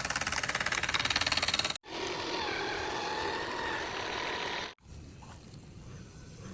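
Small electric motor and plastic gearing of a home-made RC toy vehicle running. It comes in three short stretches that cut off abruptly about two and five seconds in: a fast rattling buzz, then a noisier run with a wavering whine, then a quieter stretch.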